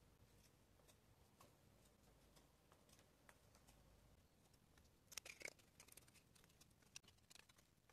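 Faint scrapes and clicks of a knife blade shaving a wooden branch, with a short, louder run of scraping strokes about five seconds in.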